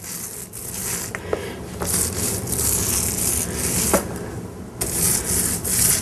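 9-inch paint roller rolling wet metallic paint onto a wall in repeated strokes, a sticky rubbing sound with a few short squeaks. The rolling stops for under a second about four seconds in, then starts again.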